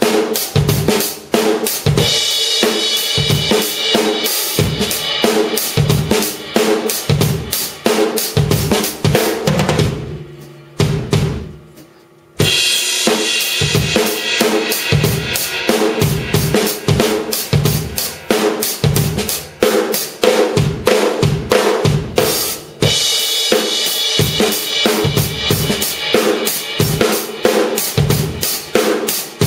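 C&C Custom drum kit with TRX cymbals, played with sticks in a driving groove of kick, snare and ringing cymbals. The playing drops away for about two seconds around ten seconds in, then comes back in hard.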